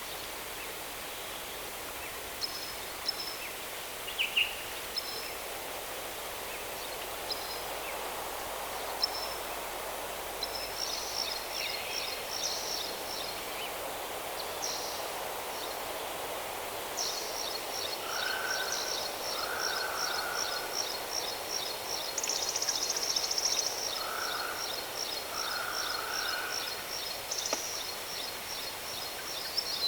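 Waterfall rushing steadily, with birds chirping high above it. From about halfway through, a high call repeats rapidly and without a break, and a lower, buzzier call comes in pairs a few times.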